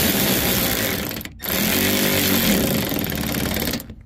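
Cordless power tool spinning a nut onto a headlight mounting screw through a long socket extension. It runs in two goes, with a brief stop a little over a second in, and the second run ends just before the end.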